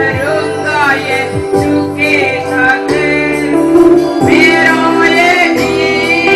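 Worship-song music: sustained keyboard-like chords under a melody that slides up and down, with a low note sweeping downward in pitch every second or two.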